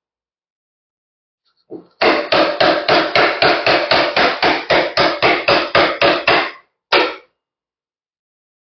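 Mallet driving a wood chisel in a fast, even run of blows, about four a second, followed by a single last blow after a short pause: the chisel is roughing away waste from a convex curve in wood, working toward the marked line.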